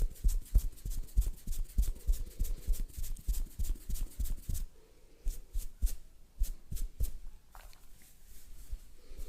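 Hands tapping rapidly on a head in a percussive head massage, about four quick pats a second. The pats break off about halfway through, leaving scattered lighter taps and soft rubbing.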